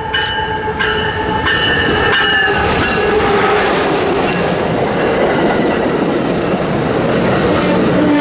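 Amtrak passenger train passing close by. Its locomotive horn sounds a steady multi-note chord that stops about two and a half seconds in. It is followed by the loud, steady rush and rumble of the passenger cars rolling past.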